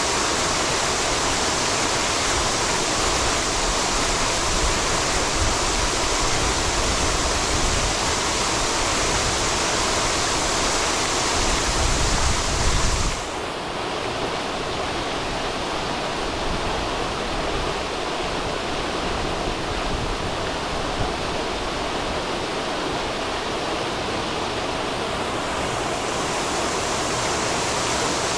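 Fountain jets splashing and falling into a basin: a steady rushing of water. About halfway through the sound turns duller and a little quieter, then brightens again near the end.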